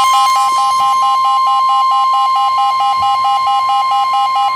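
Emergency weather alert tone: a steady, loud single-pitch tone of the kind NOAA Weather Radio sends before a warning, with a rapid electronic beeping underneath from an alert receiver. It signals that a severe thunderstorm warning is about to be read.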